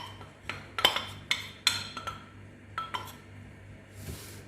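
Metal spoon clinking against a bowl of flour: a series of sharp, ringing clinks, then a brief soft hiss about four seconds in.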